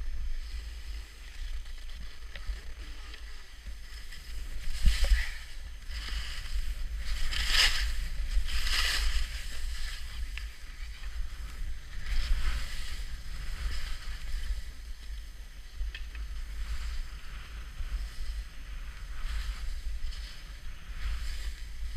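Skis hissing and scraping over packed snow through turns in a mogul glade, with several louder scrapes about five to nine seconds in, over a steady low rumble.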